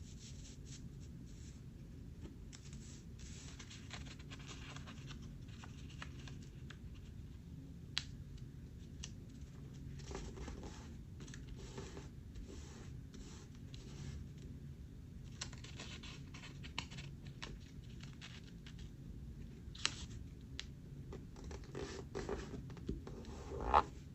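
A sheet of paper being handled and folded by hand: soft rustling and scraping with scattered sharp crinkles, the loudest near the end, over a steady low room hum.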